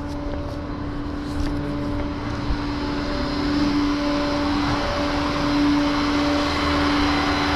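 Tow truck running with a steady engine hum over road and mechanical noise that grows louder after a few seconds.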